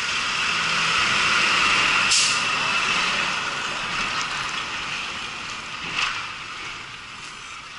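Handheld fire extinguisher discharging in a steady hiss, sprayed at a burning bus engine compartment. The hiss swells over the first two seconds, then weakens toward the end, with a sharp knock about two seconds in and another about six seconds in.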